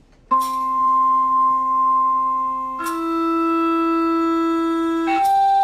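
Sustained electronic-piano tones driving a sand-covered Chladni plate: a steady held note that steps to a new pitch twice, about three seconds in and again about five seconds in.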